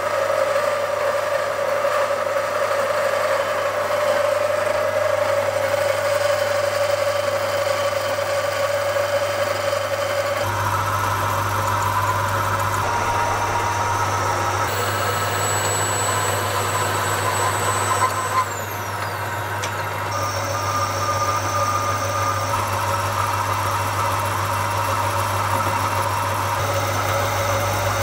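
Halifax 524 metal lathe running and turning a shaft: a steady mechanical hum with a whine. The sound changes abruptly several times, about a third of the way in and again around the middle.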